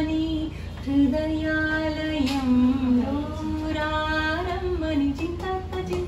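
A woman singing a slow melody, holding long notes that step and glide up and down in pitch.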